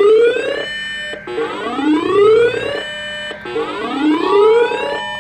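Electronic alert siren: a loud rising whoop that repeats about every two seconds, with a steady two-note Emergency Alert System attention tone joining about four seconds in.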